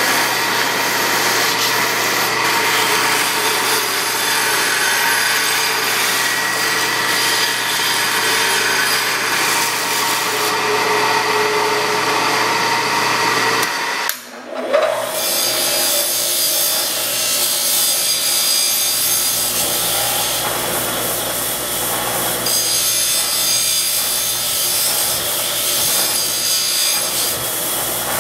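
Belt sander running with the end of a 3/8-inch cold-rolled steel rod held against the belt, grinding it round. After a brief break about halfway through, a motor-driven abrasive wheel runs with the rod pressed to it, deburring the end.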